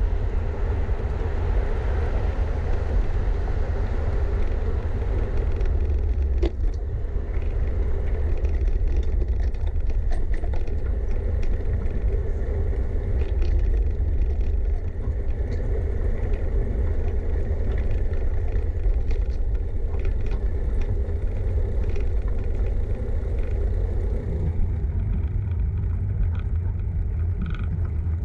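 Low wind rumble on the microphone and road noise from a bicycle being ridden, with scattered short clicks and rattles. The higher hiss thins out near the end.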